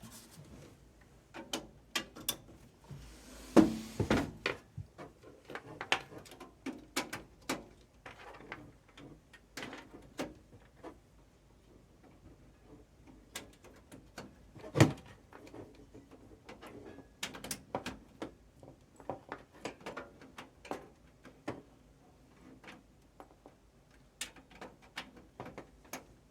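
Scattered clicks and knocks of a desktop PC tower being handled and its cables plugged into the rear ports, with two louder knocks about four seconds in and about fifteen seconds in.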